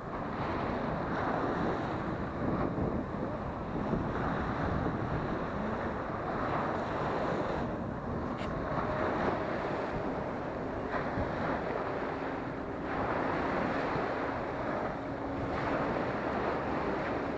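Small sea waves breaking and washing up a sandy shore, with wind buffeting the microphone. A faint steady motor hum runs underneath from about halfway.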